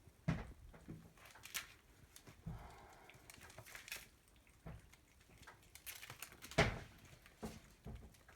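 Kittens playing in a small room: scattered light taps and knocks of paws and small plastic toys on the floor, with one louder knock about six and a half seconds in.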